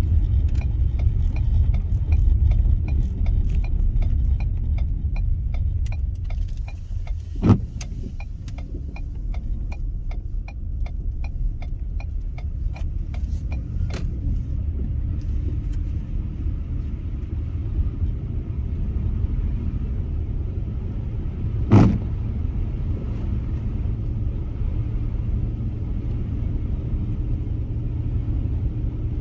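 A car's steady road and engine rumble heard from inside the cabin while it is driven on snow-covered roads. A regular ticking at about two per second runs through the first half and then stops. Two sharp thumps come, about a third of the way in and again about three quarters of the way in.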